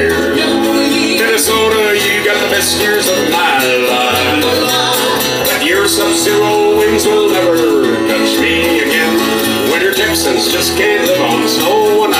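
Live country music played through a PA: acoustic guitars strummed and picked, with a melody line that holds one long note for a few seconds around the middle.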